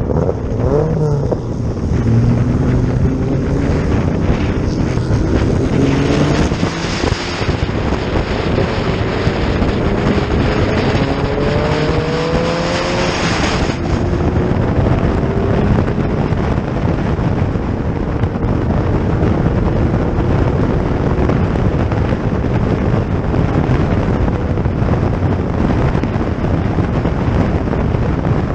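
Racing car engines accelerating, the pitch climbing again and again as they pull through the gears for the first half, then a steady mass of engine noise, with wind buffeting the microphone.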